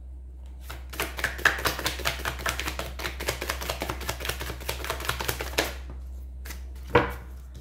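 Tarot deck being shuffled by hand: a fast run of card clicks for about five seconds, then a short pause and a single sharp tap.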